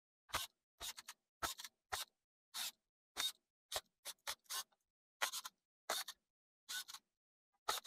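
Short, irregular clicks and scrapes, about two to three a second, from a cordless electric screwdriver driving in the screws of a laptop's plastic bottom cover.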